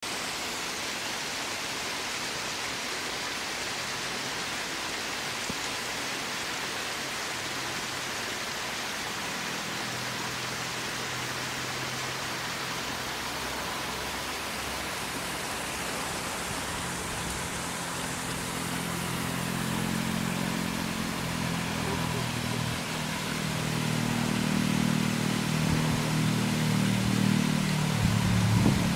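Steady rushing hiss of a waterfall. From about halfway through, a low rumble builds and grows louder toward the end.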